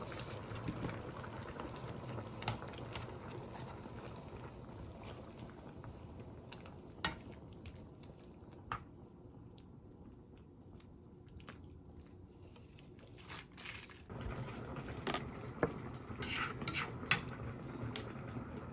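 Hot pot broth bubbling in the pot, with occasional sharp clinks of utensils against the pot. The bubbling drops down for several seconds in the middle, then comes back louder with more clinks near the end.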